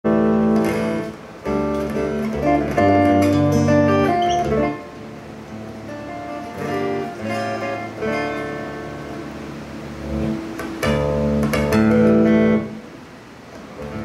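Solo steel-string acoustic guitar played fingerstyle: plucked chords and melody over ringing bass notes. It drops to a softer passage about 13 seconds in.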